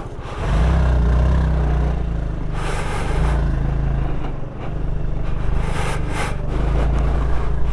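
Motorcycle engine running, its note stepping up and getting louder about half a second in and then holding steady, with wind rushing over the helmet microphone.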